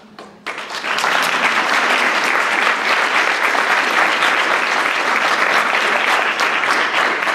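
Audience applauding in a hall, breaking out about half a second in and holding steady.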